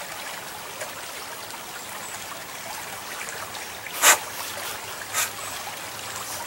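Steady trickle of a creek, with a few short, sharp scrapes of a knife blade shaving curls off a wooden stick, the loudest about four seconds in and a second about a second later.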